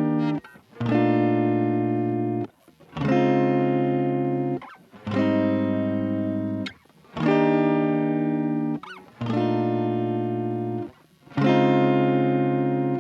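Fender Telecaster electric guitar playing the dry signal, with no chorus effect. It holds a chord, then moves to a new one about every two seconds, six changes in all. Each chord rings with a slow fade and is cut short before the next.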